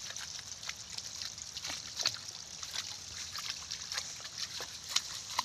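Flamingos hurrying through shallow pond water, their legs and feet making irregular small splashes and sloshing.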